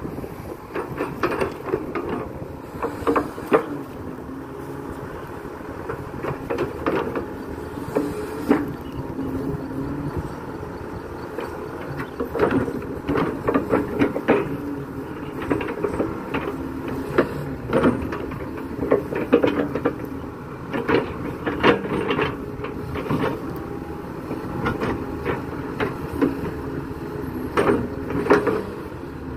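Kato crawler excavator's diesel engine running under hydraulic load as the bucket digs and swings wet mud, with frequent sharp clanks and knocks from the bucket and boom linkage.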